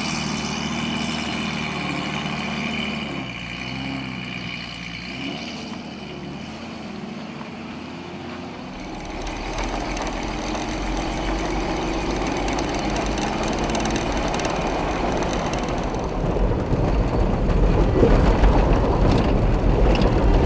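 A 4x4 motorhome's engine running, then from about nine seconds in the low rumble of driving, road and wind noise, which grows louder near the end.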